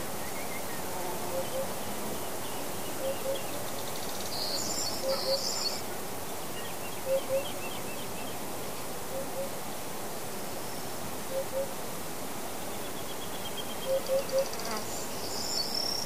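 Summer forest ambience: a steady background hiss with a bird repeating a low two-note call about every two seconds, and small songbirds breaking into high, quick chirping twice, about four seconds in and near the end.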